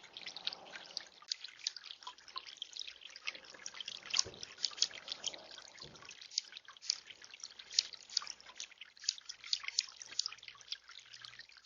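Water in a tiered bird-bath fountain trickling and dripping: a steady, irregular patter of many quick drips.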